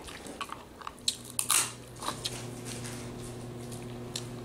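Boiled crawfish and crab shells being peeled and cracked by hand, with chewing: a few short crackles and wet squishes in the first two seconds. A low steady hum starts about a second in.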